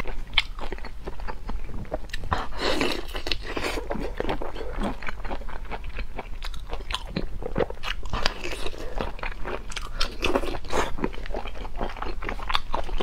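Giant prawns' shells cracking and crackling as they are pulled apart and peeled by gloved hands, mixed with close-up wet biting and chewing. Dense, irregular crackles and clicks throughout.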